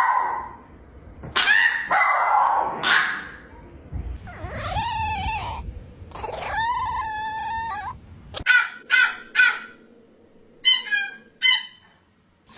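Dogs making strange warbling howl-like whines: two long wavering calls, then after a break two sets of three short, high yips.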